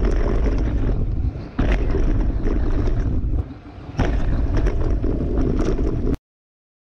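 Wind buffeting the camera microphone and a downhill mountain bike's tyres rumbling over dirt and gravel at speed, with rattling knocks from the bike. The noise drops briefly twice, then cuts off abruptly near the end.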